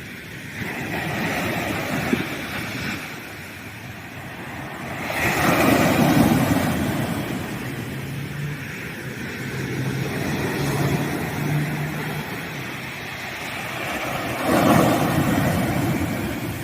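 Ocean waves breaking on a sandy beach and washing back, coming in surges. The biggest breaks are about five seconds in and again near the end.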